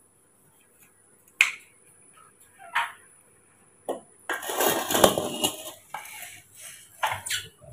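Kitchen knife cutting a root vegetable on a wooden cutting board: a few sharp knocks, and a longer rattling clatter in the middle as the knife and cut pieces meet a steel cooking pot.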